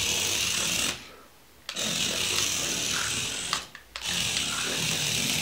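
Tiny electric drive motor and gears of a 1:60-scale mini RC VAZ-2106 wagon running at speed on linoleum, a high buzzing whine. It cuts out twice as the throttle is let off, about a second in for under a second and again briefly past the middle, then comes straight back.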